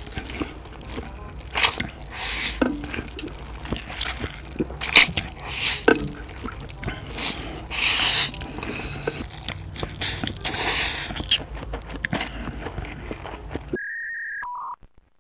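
Wet slurping and chewing of big mouthfuls of spicy instant ramen noodles, with quick irregular slurps and the odd click of chopsticks on a spoon. Near the end this cuts off suddenly into a few electronic beeps at two pitches.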